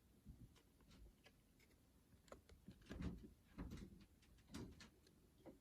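Faint handling noise of trading cards in plastic holders being moved and set down: scattered light clicks, with a few soft taps and rustles about three seconds in and again near four and a half seconds.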